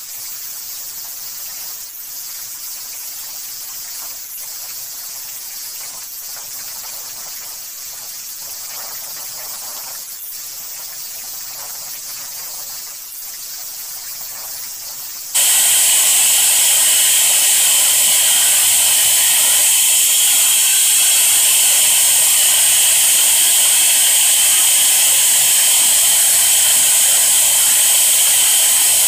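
A steady machine hiss, then about halfway through a sudden jump to a much louder, steady high-pitched whine as the INGCO 1500-watt wall chaser's motor runs on its test run.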